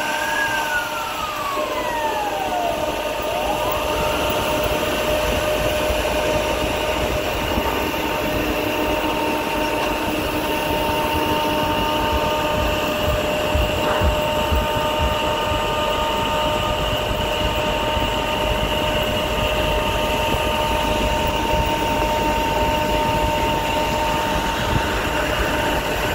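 Truck-mounted disinfectant mist cannon running with its big fan giving a steady, high whine over the low rumble of traffic. A siren wails up and down during the first few seconds.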